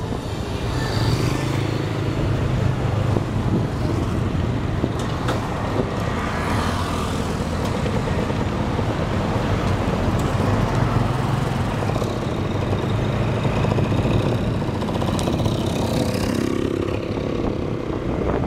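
Motorbike engine running steadily while cruising, heard from on the bike, with road and traffic noise around it.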